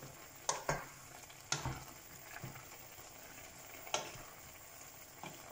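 A spoon stirring chopped carrots and spices in a pan, with a few sharp knocks of the spoon against the pan, over a faint sizzle of the curry cooking.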